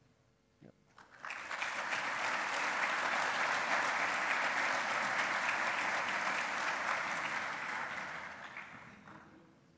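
Audience applauding. The clapping starts about a second in, holds steady, then dies away near the end.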